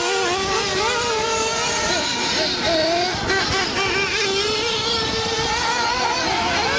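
Several 1/8-scale nitro RC buggies' small glow engines running together, a high buzzing whose pitch keeps rising and falling as the cars throttle up and brake around the track.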